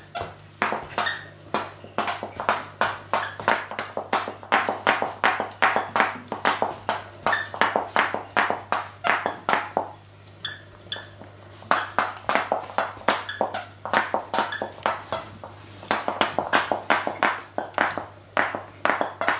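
Rubber squeaky chew toy squeaking again and again as a toy poodle bites down on it, about two to three squeaks a second, with brief pauses about halfway and two-thirds through.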